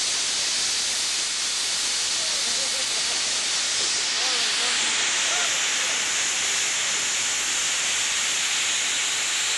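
Steam locomotive No. 90 venting steam with a loud, steady hiss, loud enough to drown out the speeches. The hiss turns thinner and higher about halfway through.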